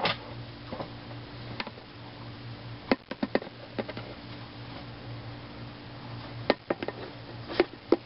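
Motor oil glugging out of an upturned plastic quart bottle into a car engine's oil filler. Scattered short clicks and glugs, a few close together about three seconds in and again near the end, over a steady low hum.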